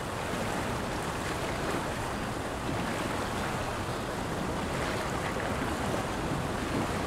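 Fast river water rushing over rocks through shallow rapids, a steady wash of noise, with some wind on the microphone.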